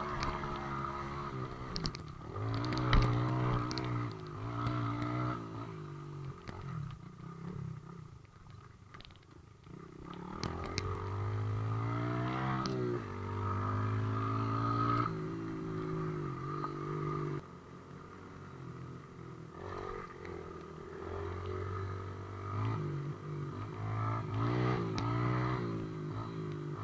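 Off-road vehicle engines running and revving up and down, the pitch rising and falling again and again. There is a sharp knock about three seconds in.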